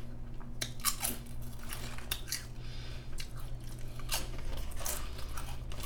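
Lay's potato chips being bitten and chewed: a run of short, sharp crunches, over a steady low hum.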